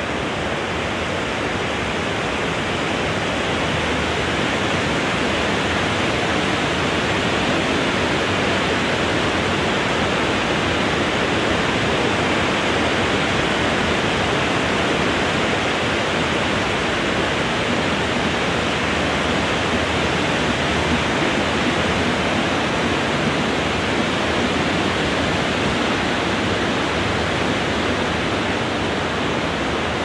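Wind blowing through trees: a steady, even hiss that swells a little through the middle and eases slightly near the end.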